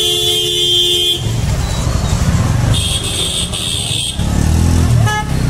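Busy street traffic: a vehicle horn honks for about a second at the start, and a second, higher-pitched horn sounds for just over a second about three seconds in, over the low rumble of engines.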